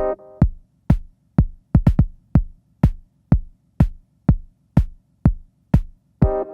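House-style drum machine beat: a steady kick about twice a second, with a quick run of extra hits about two seconds in. A repeating synth chord pattern drops out just after the start and comes back in near the end.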